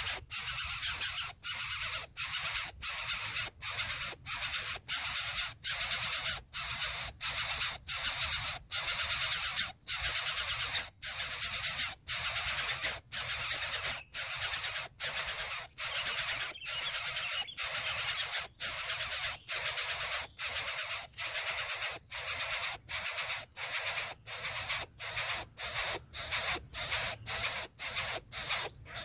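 Greater coucal nestlings hissing in the nest: a loud, regular series of harsh hisses, each about half a second long, coming roughly one and a half times a second and quickening near the end.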